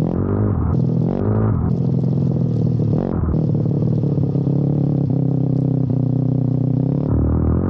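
Pit bike's single-cylinder engine running on a dyno: its speed swings up and down during the first three seconds, then holds steady.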